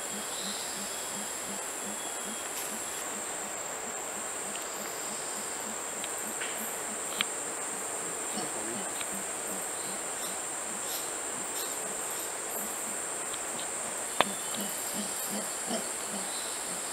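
Steady high-pitched buzzing of an insect chorus, with a faint low pulsing about three times a second and a few short sharp clicks, the loudest near the two-thirds mark. No howling is heard.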